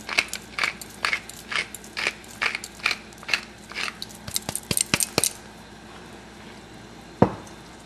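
Wooden pepper mill grinding black peppercorns, a crunchy click with each twist, about two a second, stopping a little past halfway. One sharp click near the end.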